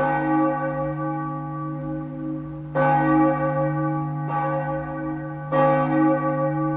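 A large bell tolling: it is struck four times, at uneven gaps of about one and a half to three seconds, and each strike rings on with a deep steady hum beneath.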